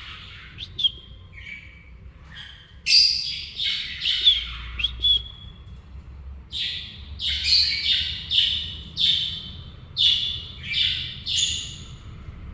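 Pet cockatiel calling: a few scattered chirps, then from about halfway in a run of loud, harsh calls at about two a second.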